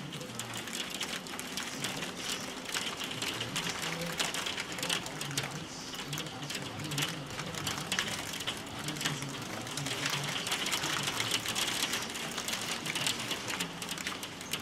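Hail falling, a dense rapid patter of hailstones hitting the ground and garden surfaces.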